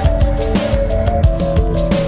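Background music with a steady beat: a melodic line of held notes over regular drum hits.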